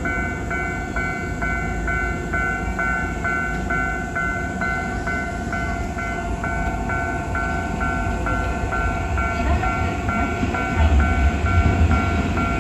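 Japanese electronic level-crossing alarm sounding its normal low-tone ding, about two strokes a second, over the rumble of a train, which grows louder near the end.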